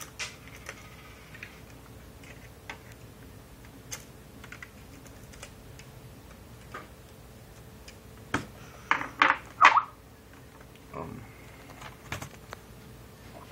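Scattered small clicks and taps from handling a laptop's plastic casing and screws during repair, with a louder cluster of knocks and rattles about nine seconds in.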